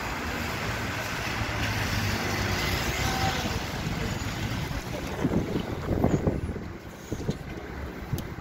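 SOR NB 18 articulated city bus drawing up at a stop, its engine running with a steady low hum. About five seconds in there is an irregular low buffeting, then a few light clicks near the end.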